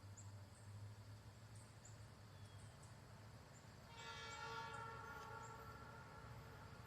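Faint, distant air horn of a New England Central diesel freight locomotive: one blast of about two and a half seconds, starting about four seconds in, over a low steady rumble.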